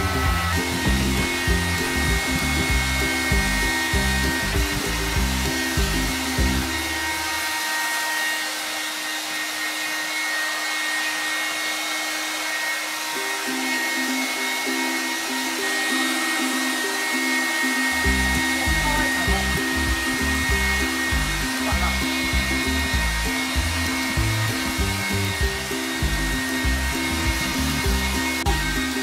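Hair dryer blowing steadily, drying a freshly shampooed toy poodle's wet coat, with background music over it. The music's low notes drop out for about ten seconds in the middle.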